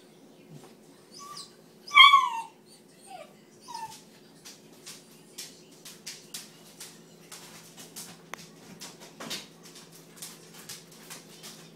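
Bluetick coonhound puppy whining and yelping in protest at a baby gate: one loud, wavering yelp about two seconds in, with a few shorter whines around it. After that come many short sharp clicks and scrapes.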